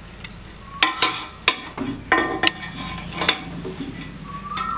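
A metal perforated skimmer stirs and lifts cooked dum biryani rice in a metal pot. It scrapes and clinks against the pot several times.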